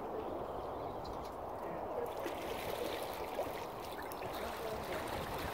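Steady rush of lapping lake water, with a few small splashes.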